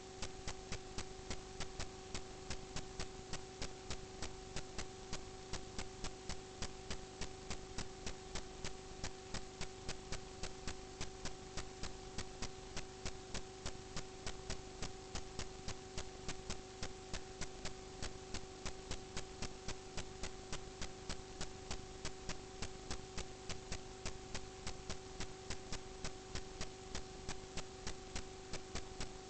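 Running HVAC ductwork giving a steady hum with a regular ticking, about three ticks a second, that keeps up without a break.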